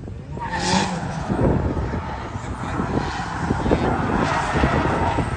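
Drift car sliding sideways around tire barrels, its engine held at high revs with the tyres scrubbing across the asphalt. It gets louder about half a second in and stays loud.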